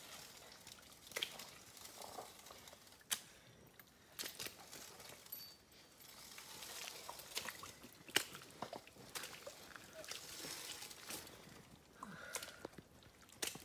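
Faint footsteps wading through muddy water as a loaded bike is pushed through the puddles, with a few sharp clicks, the loudest about three and eight seconds in.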